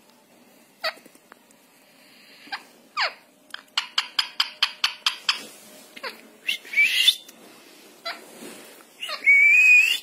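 Indian ringneck parrot calling: a few short sweeping squawks, a quick run of about a dozen sharp clicks around the middle, then a long rising whistle near the end, the loudest sound.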